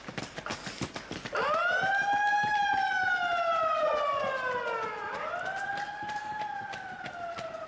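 A siren wailing in two sweeps. It rises sharply about a second and a half in, falls slowly over about three and a half seconds, then rises again and falls slowly.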